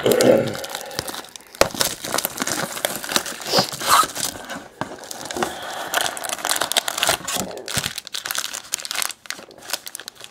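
Plastic shrink wrap being torn and crumpled off a trading-card box, then the cardboard box opened and its foil packs handled: dense, irregular crinkling and rustling with sharp crackles.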